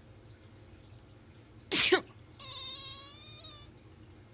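A person sneezes once, loudly, about two seconds in. A domestic cat answers right after with one long meow, reacting to the sneeze.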